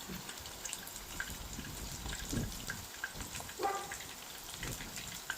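Lumpia deep-frying in hot oil in an electric pan: a steady sizzling hiss with many small pops and crackles.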